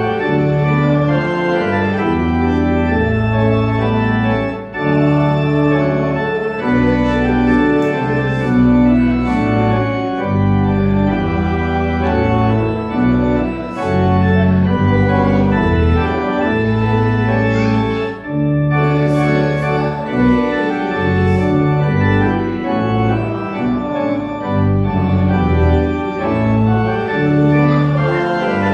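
Church organ playing full sustained chords that change about once a second, like a hymn.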